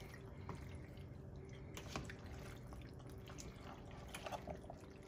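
Faint wet squelching and soft clicks of mostaccioli pasta and meat sauce being stirred with a spatula in a stainless steel pot, over a low steady hum.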